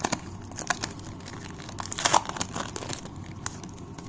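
Foil wrapper of a Panini Legacy football card pack crinkling and tearing as it is pulled open by hand, with irregular sharp crackles and a louder crackle about two seconds in.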